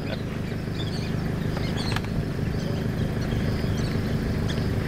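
An engine running steadily at a constant pitch, with birds chirping faintly over it.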